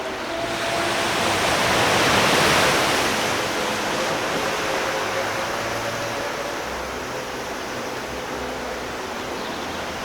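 Storm surf: a big wave breaks and rushes up the shore, swelling to its loudest about two seconds in and then slowly washing back, with faint held notes of music beneath.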